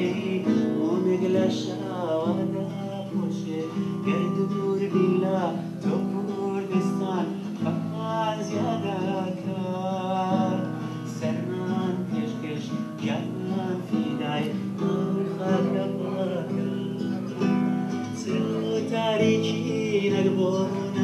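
A man singing while accompanying himself on an acoustic guitar, the voice gliding and wavering over plucked and strummed chords.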